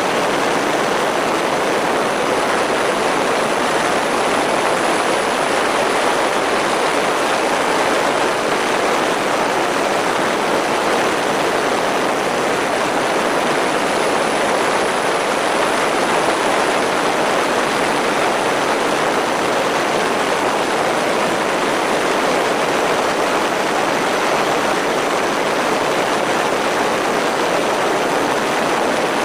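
Steady rush of airflow over the microphone of a camera mounted on a flying MFD Crosswind Nimbus Pro RC plane, mixed with the even whir of its twin electric motors and propellers; level and pitch stay constant throughout, as in cruising flight.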